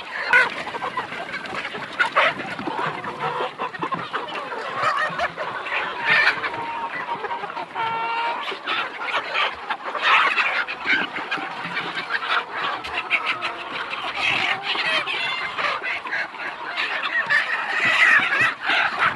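A large flock of local chickens clucking and calling together, many voices overlapping, with a rooster crowing now and then.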